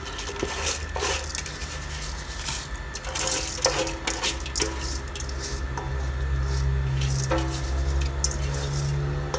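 Washed rice being scraped by hand out of a glass bowl into a pot of boiling water: scattered clinks, taps and scrapes of the bowl and rice against the metal pot, over a low steady hum.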